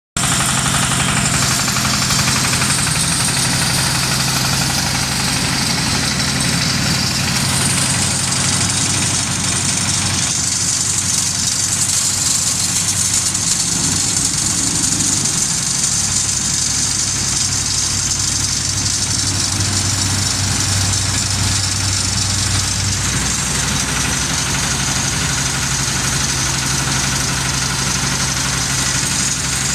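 Hydraulic silage baler running: a steady, loud machine hum with a high hiss over it. The hum shifts pitch slightly about ten seconds in.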